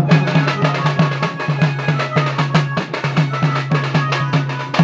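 Double-headed barrel drums (dhol) beaten with stick and hand in a fast, even rhythm of about five strokes a second, over a steady low hum.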